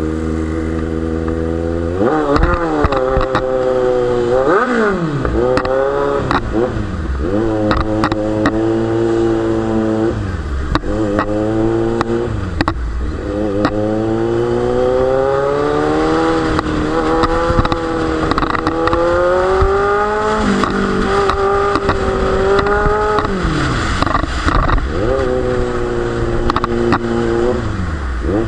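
Kawasaki Z900's inline-four engine through an aftermarket Akrapovic exhaust, accelerating hard through the gears again and again: the pitch climbs and drops sharply at each shift, with frequent short sharp cracks in between.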